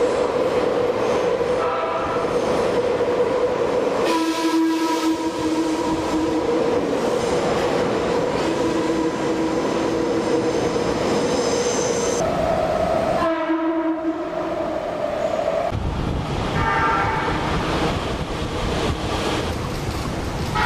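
Train horns sounding long, held notes, at times two notes at once, as trains enter an underground station. Near the end the horns give way to the low rumble of a train running.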